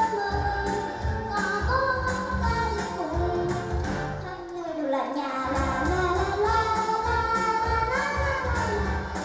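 A young girl singing into a microphone over a musical accompaniment with a steady beat. About halfway through the beat drops out for a moment while her voice slides down and back up.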